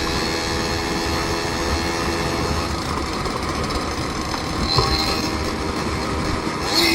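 A vehicle's engine running steadily under road noise while on the move, with a steady hum of several pitched tones over a rushing haze.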